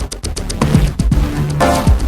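Electronic synthesizer music from an M-Audio Venom with a Waldorf Microwave XT fed through its aux inputs. It has a kick drum that drops in pitch, quick hi-hat ticks, held bass notes, and a swelling burst of noise shortly before the end.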